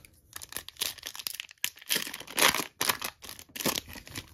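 Trading card pack wrapper crinkling as it is torn open and pulled off by hand, a run of irregular crackles that is loudest about two and a half seconds in.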